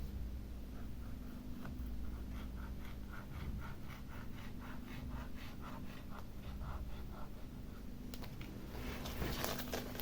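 Glue applicator tip scratching along the tablet's frame as glue is spread, in short even strokes about four or five a second, with a louder burst of scraping near the end.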